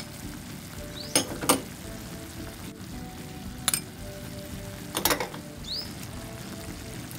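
Chicken and tomato sauce sizzling in a steel frying pan, with a few sharp clinks of a metal spoon against the pan as seasoning and chillies are added.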